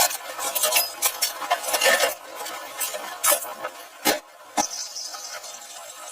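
Light clinks and scrapes of a utensil against cookware, with a couple of sharper knocks near the middle.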